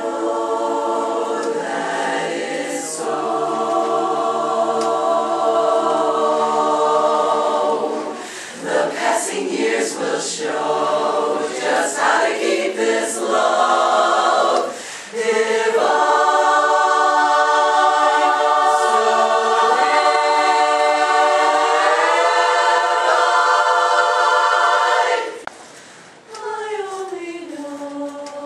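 Women's chorus singing a cappella in close harmony, holding sustained chords. Near the end the singing stops briefly, then picks up again more softly.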